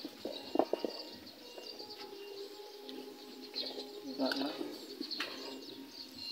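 Fresh fish being handled and shifted by hand in a styrofoam box, giving a few soft knocks and slaps, the sharpest about half a second in. A bird calls in the background.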